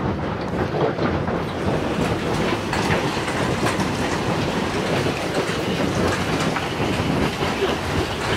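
Hailstorm hitting the roof and walls of the house, heard from inside: a steady, dense clatter of many small impacts over a rushing noise.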